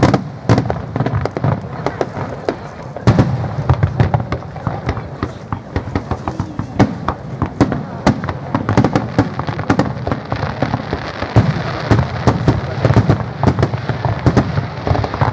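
Aerial fireworks shells bursting in a rapid barrage: a long run of sharp bangs with echoes, coming thicker and faster over the second half.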